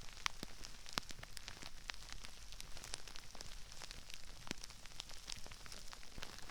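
Crispy rice crackling: a dense, irregular patter of small crackles and pops, with a few louder snaps standing out.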